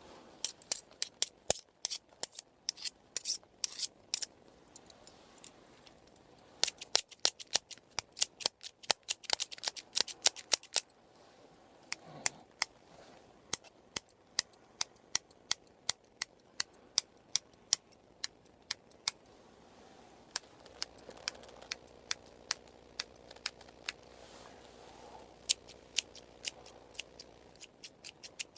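Close-miked hair-cutting scissors snipping: quick runs of sharp snips in the first eleven seconds, then a steadier, slower snipping at about two a second.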